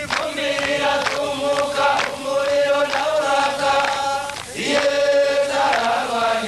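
A group of voices chanting in long held notes, with a short break about four and a half seconds in before the next note.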